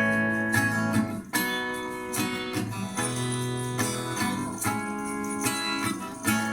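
Instrumental break in a song: guitar playing held chords that change every second or so.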